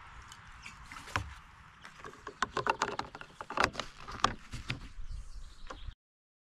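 Fuel trickling from a plastic fuel can into a Stihl chainsaw's tank, then a run of sharp plastic clicks and knocks as the can is pulled away and the fuel cap is screwed shut. The sound cuts off suddenly near the end.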